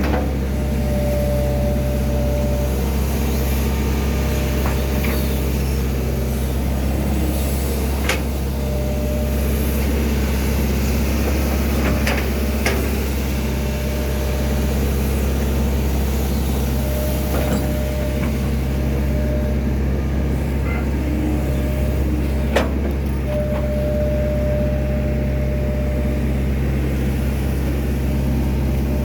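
Excavator's diesel engine running steadily under work, with a higher whine that comes and goes and a few sharp metallic knocks.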